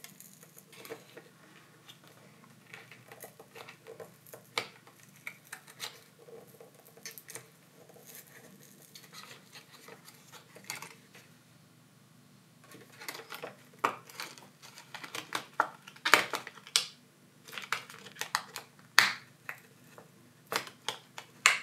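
Thin plastic pry card scraping and clicking against a smartphone battery and its frame as it cuts through the battery adhesive: many short sharp clicks and scrapes, sparse at first and busier and louder in the second half.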